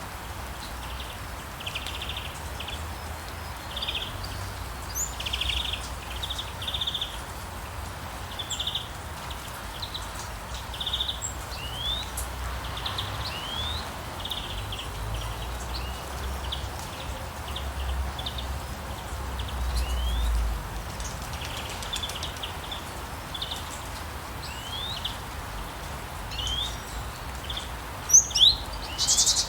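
Wild birds singing: repeated short trilled notes and quick rising chirps, over a steady background hiss and a low rumble, with a louder burst of calls near the end.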